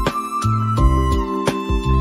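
Instrumental background music with a steady beat, about three strokes a second, under sustained melody notes and a bass line.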